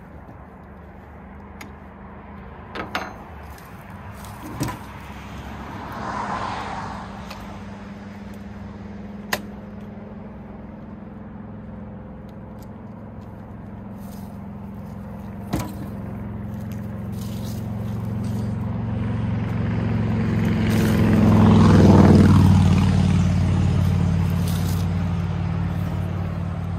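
A motor vehicle's engine drones steadily, growing louder to a peak about two-thirds of the way through and then easing off, as it passes on the road. A few sharp clunks come from tools and attachments being set down in a pickup truck bed.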